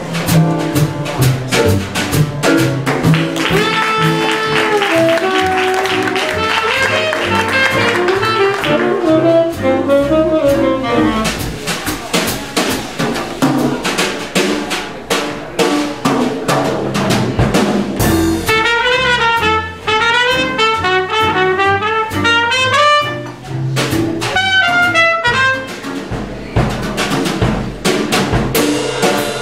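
Small jazz combo playing live: horn lines over piano, upright bass and drum kit, with fast running melodic figures in the second half.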